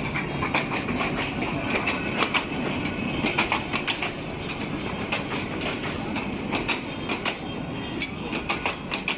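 Passenger train coaches rolling past, their wheels clicking over the rail joints in irregular clusters over a steady rumble.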